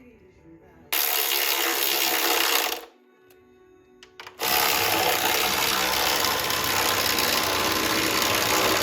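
A power tool run in two bursts, about two seconds and then about four seconds long, each starting and stopping abruptly, with a few clicks in the quiet gap between them.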